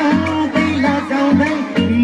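Loud live pop music over a concert PA, a melody sung over a band with a steady bass.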